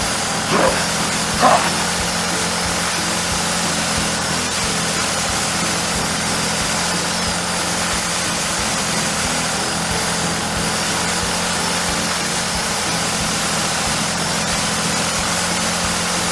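Small motor of a DIY mini construction machine running steadily, a constant hum under an even hiss. Two brief squeaky blips come in about half a second and a second and a half in.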